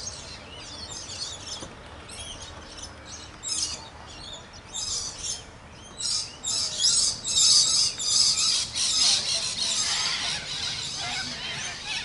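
Birds chirping and calling in quick high bursts, getting busier and louder from about halfway through.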